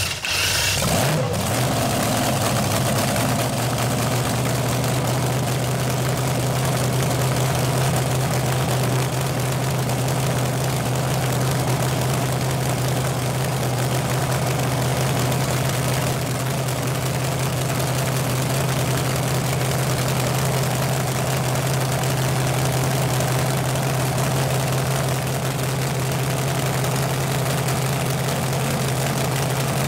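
Supercharged V8 of a nostalgia drag car, running through open zoomie headers: it catches and revs briefly in the first second, then idles loud and steady.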